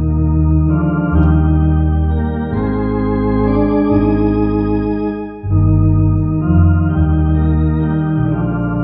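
Two-manual electronic organ playing a slow hymn in sustained full chords over a held bass, the chords changing every second or two. There is a brief break between phrases about five and a half seconds in.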